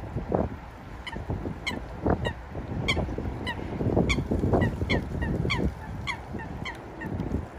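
Waterbirds calling in a rapid run of short, slightly falling calls, about two to three a second, starting about a second in. Wind rumbles on the microphone underneath.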